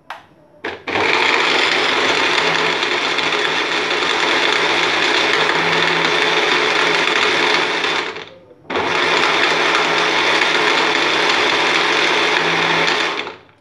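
Personal bullet-style blender running, its cup pressed down onto the motor base to blend milk, chocolate ice cream and chocolate syrup into a shake. A couple of clicks as the cup seats, then the motor runs steadily for about seven seconds, stops briefly, and runs again for about four and a half seconds.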